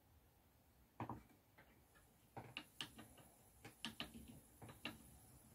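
Faint, unevenly spaced clicks and ticks from a spinning wheel turning as yarn is core-spun, about two or three a second, over near silence.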